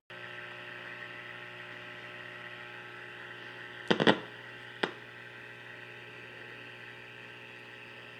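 Westinghouse H-126 Little Jewel tube radio giving a steady mains hum and hiss through its speaker with no station coming through. A couple of sharp crackling clicks come about four seconds in, and one more a second later.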